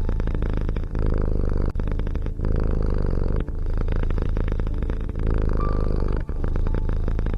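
A cat purring: a steady, rapid rumble that breaks off briefly every second or so as the cat breathes in and out.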